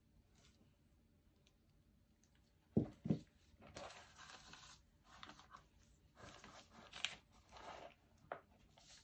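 Two quick knocks as the wet canvas is set against the table, then several bursts of rustling and scraping from newspaper and latex-gloved hands as the painted canvas is handled and tilted.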